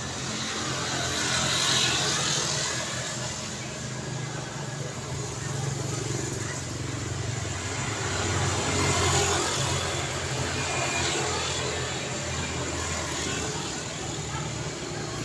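Road traffic going by: a steady wash of tyre and engine noise, with vehicles swelling past about two seconds in and again about nine seconds in.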